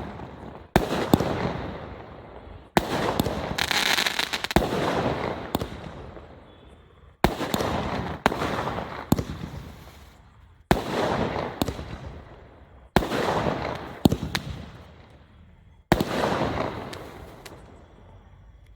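A 30-shot multi-colour fireworks cake with crackling effect firing. About seven shots, each a sharp bang followed by a few seconds of dense crackling that fades out, spaced one to four seconds apart. The last crackle dies away near the end.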